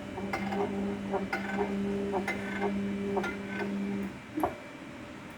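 Home-built CNC machine's stepper motors running during homing: a steady hum with ticking about three times a second. The hum stops about four seconds in, followed by a single sharp click.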